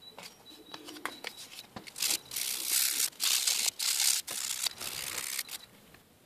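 Sandpaper rubbed by hand over a blackened steel ax blade in about six quick scraping strokes, sanding back the blackening to bring out the etched picture. Light handling clicks and paper crinkle come before the strokes start about two seconds in.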